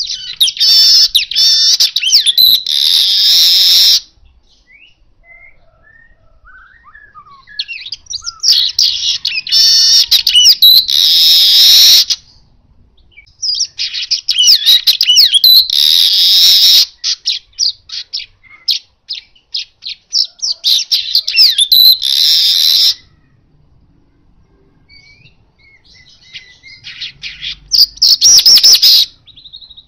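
Asian golden weaver singing close up: five bouts of fast, scratchy chattering, each building into a loud, dense buzzy trill, with short pauses between bouts.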